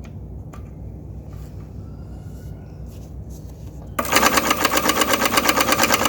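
Brother single-needle lockstitch industrial sewing machine starting abruptly about four seconds in and running at speed, a rapid even clatter of stitches, sewing with its stitch length set very long. Before it starts there is only a low steady hum.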